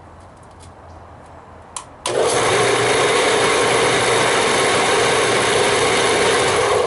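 Radial arm saw motor switched on with a click about two seconds in, running at full speed with a loud steady whir as it drives the belt and spindle of a homemade wood lathe with a wooden workpiece spinning on it; the sound cuts off abruptly near the end.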